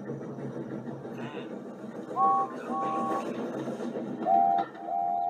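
Steam locomotive sound effects: a steady rush of steam puffing, with two short two-note whistle blasts about two seconds in and two lower whistle blasts near the end. Heard through a TV speaker.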